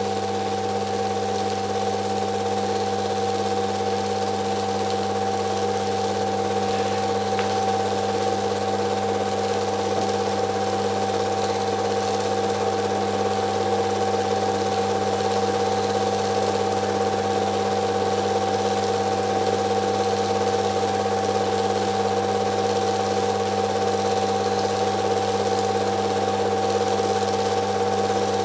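Film projector running with a steady, unchanging mechanical hum.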